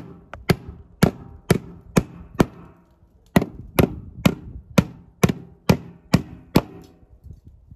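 Steel-handled hammer driving nails through wire stucco netting into the wall: blows about two a second, with a short pause partway through, stopping shortly before the end.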